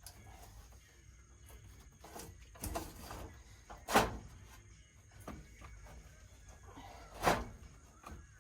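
A few sharp metal knocks and clunks from work on a Kubota tractor's battery as it is loosened and pulled: a smaller one near three seconds in, the loudest about four seconds in, and another strong one near seven seconds.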